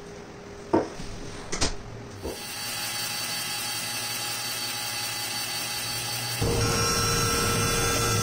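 A few sharp knocks, then a bandsaw running steadily. About six seconds in it gets louder and stays steady as the blade cuts into a plywood strip.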